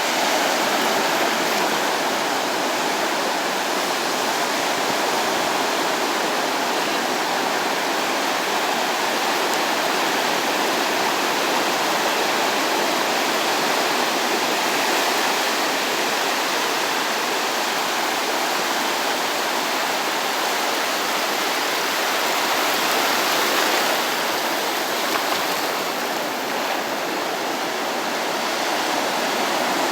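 Waves breaking and washing up the beach on a calm sea, a continuous rushing of surf with a slight swell about two-thirds of the way through.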